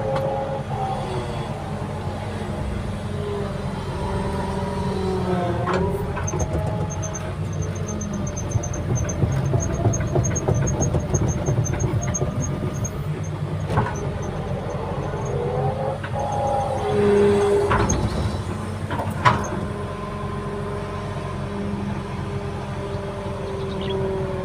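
Diesel engine of an earthmoving machine running under load, with a whine that rises and falls as it works. There are a few sharp knocks, and a run of fast high ticks during the first half.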